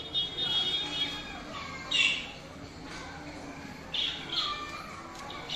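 Budgerigars chattering, with short high squawks and chirps coming in irregular bursts, the loudest about two seconds in and again around four seconds in.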